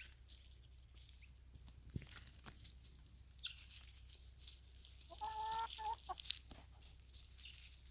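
Domestic hens clucking softly, with one longer, drawn-out call about five seconds in, over scattered light ticks and rustles.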